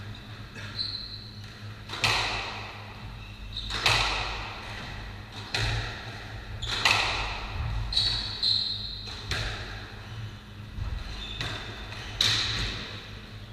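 A squash rally: the ball is struck and cracks off the walls about every one and a half seconds, each hit ringing in the hard-walled court. Short high shoe squeaks on the wooden floor come between the shots.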